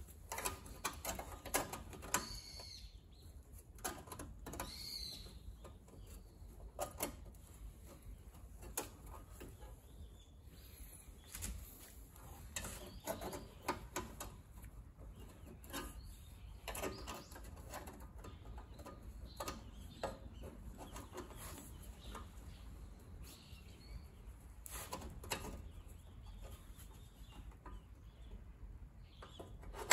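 Irregular light taps and clicks of hand work on car sheet metal, scattered unevenly with no steady rhythm.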